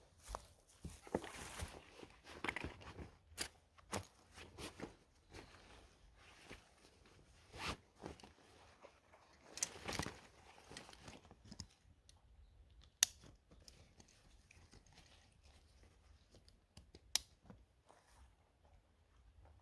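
Faint rustling and crinkling of camping gear being handled and packed away, broken by scattered clicks, two sharper ones in the second half.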